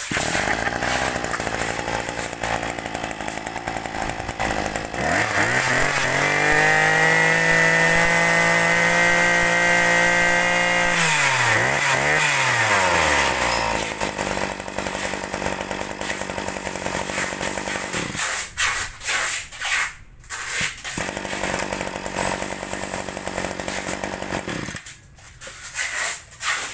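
Small two-stroke brush cutter engine idling, then revved to full throttle and held for about five seconds. It drops back with a short blip and returns to idle, and near the end it runs unevenly, the sound dipping several times.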